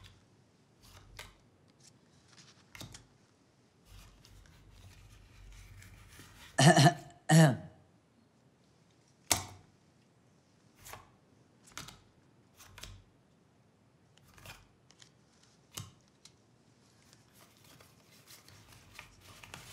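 Playing cards laid and slid on a tile floor through the gap under a door: scattered light clicks and taps. About seven seconds in, a person gives two short, loud vocal sounds in quick succession.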